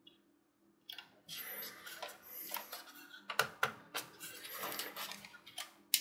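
Handling noise and a few sharp clicks of needle-nose pliers working a nylon zip tie, starting about a second in, with the loudest click just before the end.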